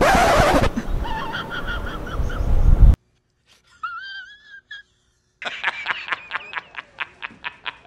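Background music that cuts off suddenly about three seconds in, then after a short gap a man laughing heartily in quick bursts, about five a second, through the last two and a half seconds.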